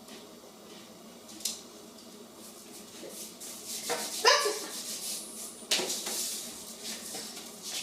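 A dog in the house barks a couple of times, short sharp barks a little past the middle, followed by some rustling and clatter.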